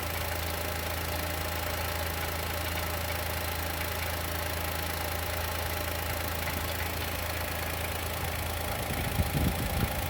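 2020 Chevrolet Onix's naturally aspirated engine idling cold with a knock, which the owner suspects is a piston pin or valve lifter and expects to fade once the engine warms up. A few louder low thumps come near the end.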